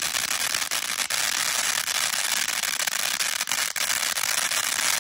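A lit firework hissing and crackling steadily as it sprays sparks, with scattered sharper crackles and no bangs.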